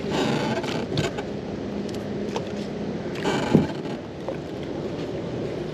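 Magnet-fishing rope being hauled in hand over hand, the rope swishing through gloved hands in a few pulls, with a short low sound about three and a half seconds in.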